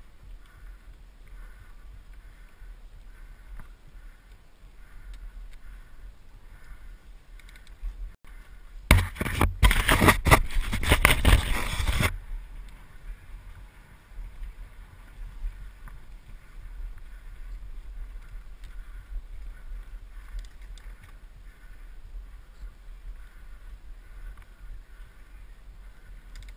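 Mountain bike riding fast down a dirt forest trail, heard from a helmet-mounted camera: steady tyre rolling noise and bike rattle, with a much louder rush of noise lasting about three seconds, about nine seconds in.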